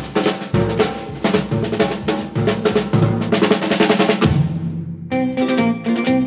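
Background music: a drum-led instrumental intro with regular beats, changing about five seconds in to a plucked guitar part.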